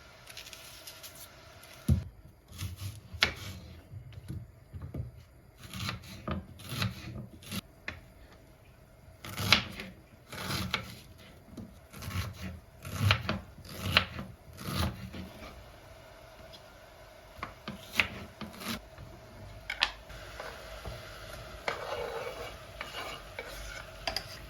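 Kitchen work sounds: an irregular run of short scrapes and knocks of utensils and dishes, busiest in the first half, then a few separate knocks and a soft rubbing near the end.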